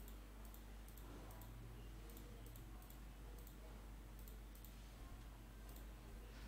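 Faint computer mouse clicks, two or three a second at irregular spacing, as the plugin devices in the effect chain are switched on one by one, over a faint low hum.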